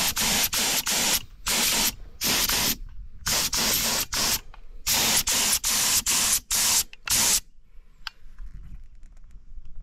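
Gravity-feed air spray gun spraying paint in a string of short hissing bursts, about a dozen of them, stopping after about seven seconds.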